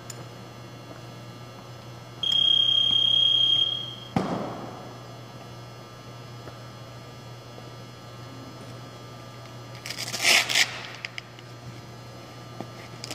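An electronic buzzer sounds one steady high tone for about two seconds, followed right after by a single thud. Near the end comes a brief clatter, and a low steady hum runs underneath.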